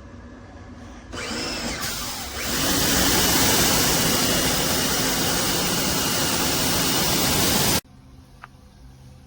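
Pressure washer starting up with a rising whine, then the gun spraying water in a loud steady hiss for about five seconds. The spray cuts off suddenly.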